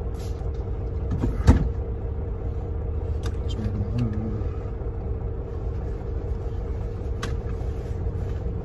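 Steady low rumble and hum of a semi truck heard from inside its cab, with a sharp click about one and a half seconds in and a few faint ticks and rustles as a passport is wiped with a paper towel.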